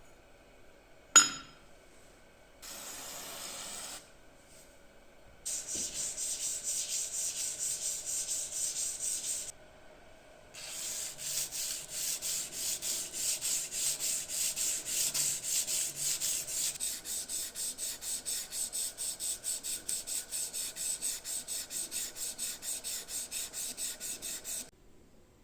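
A sharp click about a second in, then rapid back-and-forth hand rubbing strokes, about four a second, in two long runs with a short pause between them: an abrasive being worked by hand on a knife part.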